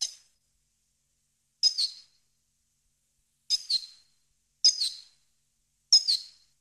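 European goldfinch singing: five short, high twittering notes spaced about one to two seconds apart, with silence between them.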